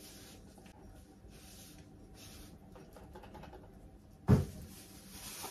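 Faint scraping and rustling of kitchen handling, then a single loud knock about four seconds in, as of a bowl or utensil set down hard on a counter.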